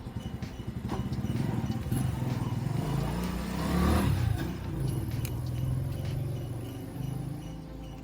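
Honda CBR250RR MC22's inline-four engine running. It is revved up to a peak about halfway through and then drops back.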